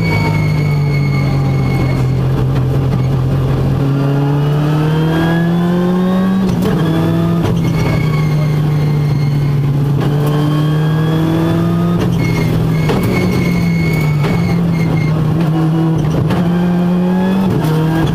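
Ford Fiesta R5+ rally car's turbocharged 1.6-litre four-cylinder engine at full effort, heard from inside the cabin. The engine note climbs and drops back sharply several times as the car accelerates up through the gears, over a steady loud drone, with scattered sharp clicks.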